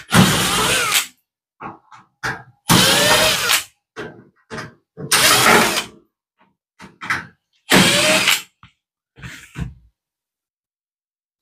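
Cordless drill-driver backing screws out of a toaster oven's sheet-metal cover: four short runs of about a second each, each spinning up in pitch as it starts. Light clicks and taps come between the runs.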